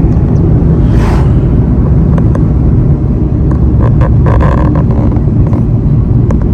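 Car running along the road, its engine and tyre rumble heard from inside the moving vehicle, with a short hiss about a second in and a few brief clicks around four to five seconds in.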